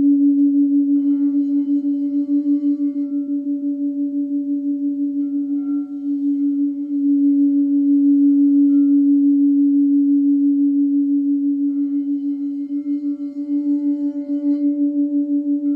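Quartz crystal singing bowl sounding one sustained, pulsing tone with a fainter octave above it. Faint higher overtones swell in and fade a few times.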